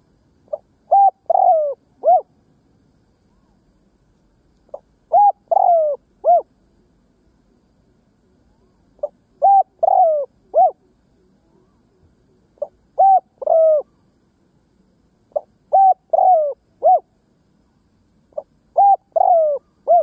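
A caged decoy spotted dove cooing, giving six phrases about every four seconds. Each phrase is a soft short note, then a couple of stronger coos with a long falling slur, and a last separate coo.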